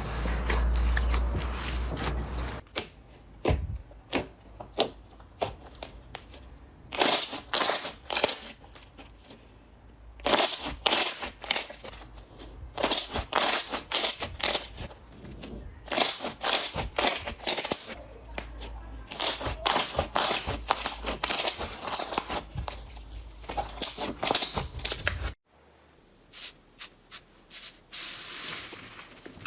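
Slime being squeezed and pressed by hand: irregular crunchy crackles and pops in bursts, with short pauses between.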